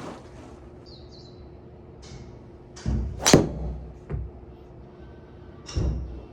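Titleist TSR4 driver striking a golf ball: one sharp, loud crack about three seconds in, with duller thumps just before it and another thump a couple of seconds later.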